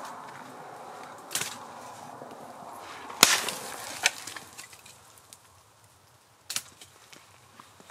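A few sharp cracks or snaps at uneven intervals, the loudest about three seconds in.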